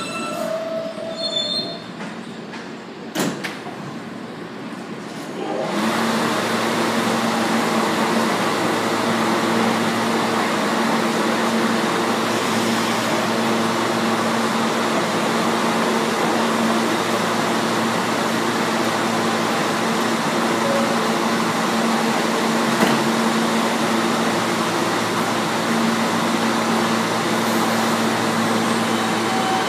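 R160 subway train coming to a stop at the platform, a brief wheel and brake squeal fading in the first second or so. From about six seconds in the standing train gives a steady hum with a low drone.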